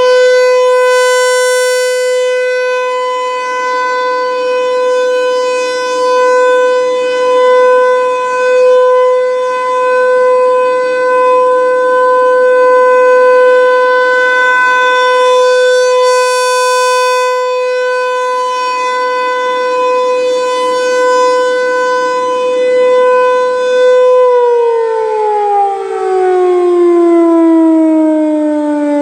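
American Signal T-135 rotating electromechanical outdoor warning siren sounding a test: one loud steady wail at full speed, swelling louder and brighter twice, about fifteen seconds apart, as the rotating horn sweeps past. About 24 seconds in the motor is cut and the siren winds down, its pitch falling steadily.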